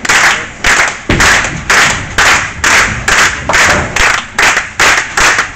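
Hands clapping in a steady slow rhythm, about two claps a second, close to the microphone.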